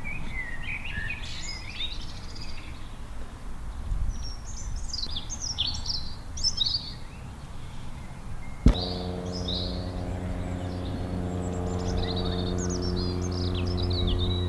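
Birds chirping and calling, with a steady background hiss. About two-thirds through, a sharp click is followed by a steady low hum that starts and keeps going.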